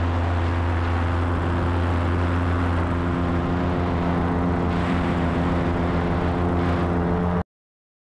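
Paramotor engine and propeller running steadily at an even pitch in flight, heard from the pilot's harness. The sound cuts off abruptly near the end.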